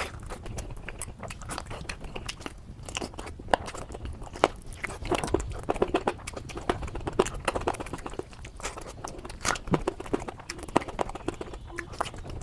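Close-up eating sounds: a person biting and chewing crunchy food, with many irregular sharp crunches and crackles.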